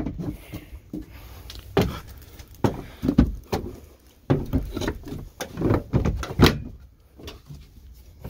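Milwaukee Packout hard plastic tool boxes being handled and set onto their mounting plates, giving an irregular series of sharp plastic clacks and knocks.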